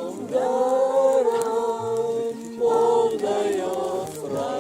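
A small group of voices singing a hymn together, with long held notes.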